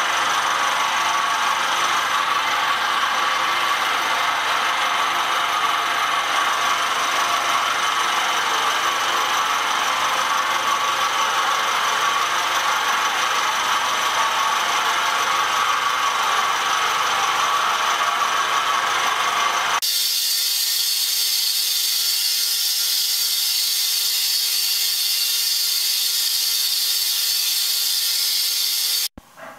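Vertical milling machine running, its end mill cutting the cast-iron fork of a shaper rocker arm in a steady grinding run. About two-thirds of the way through the sound changes abruptly to a thinner, higher one, and it stops suddenly just before the end.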